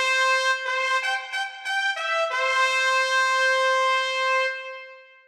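A single brass instrument playing a short melody: a few quick notes, then one long held note that fades away near the end.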